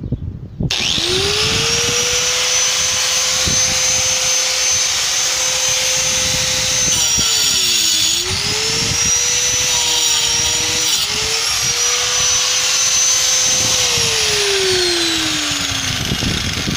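Black+Decker 820-watt angle grinder switched on and spinning up to a steady high whine, then cutting into a cement wall with a loud grinding hiss; its pitch sags as the disc bites about seven seconds in and again briefly later. Near the end it is switched off and the whine falls away as it spins down.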